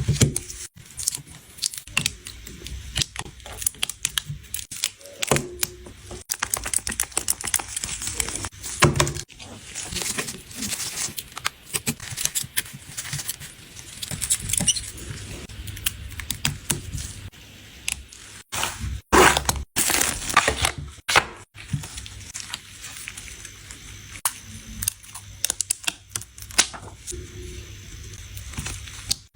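Hand tools and fingers working on an iPhone 13 during a battery replacement: many small sharp clicks, scrapes and short tearing sounds, with a louder scraping stretch about two-thirds of the way through.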